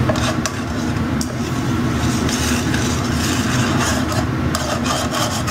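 Metal tongs stirring and scraping onions and mushrooms through a simmering gravy in a metal skillet, working the browned drippings off the bottom, with scattered clicks of the tongs against the pan over a steady rumble.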